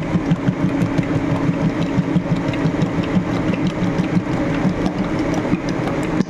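Gelato pasteurizer running during its cooling cycle, its motor and stirrer turning with a steady hum and a fast, even pulsing.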